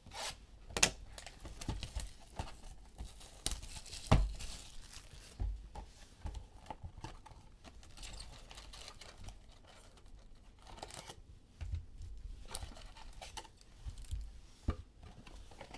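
A sealed box of Panini Contenders Draft basketball cards being torn open by hand: irregular ripping and crinkling of the plastic and foil wrapping, with scattered sharp clicks and rustles.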